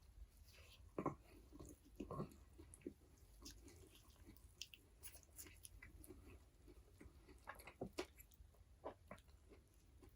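Close-miked chewing of burger and fries: soft, wet mouth sounds and small clicks, with a few louder bites or chews about one, two and eight seconds in.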